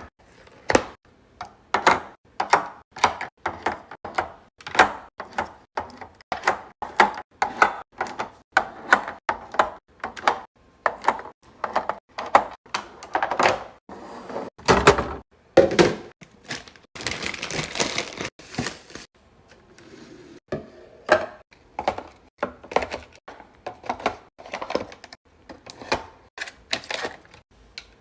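Items being set down and arranged one after another: quick hard clacks and thunks, about two a second, with a few seconds of rustling a little past halfway.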